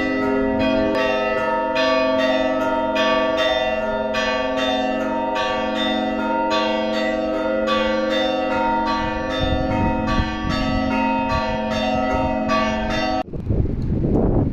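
Orthodox church bells ringing: a quick, steady run of strikes, about three a second, over the lingering hum of the larger bells. The ringing stops abruptly near the end and gives way to wind buffeting the microphone.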